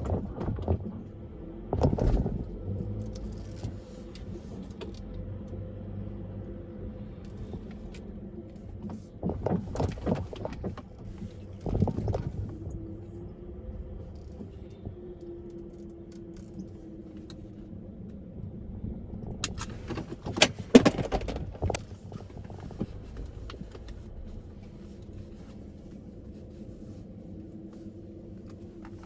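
Car driving, a steady low road and engine hum heard inside the car, broken several times by short bursts of rattling clatter, the loudest about two-thirds of the way through.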